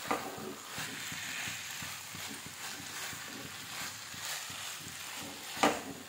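Spatula stirring and tossing noodles in a frying pan: irregular scraping and tapping against the pan over a faint sizzle, with a sharp clank right at the start and a louder one near the end.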